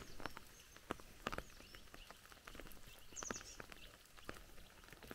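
Faint footsteps of a person walking through grass on a dirt path, soft crunches every half second or so, with a bird giving a quick run of high chirps a little past the middle.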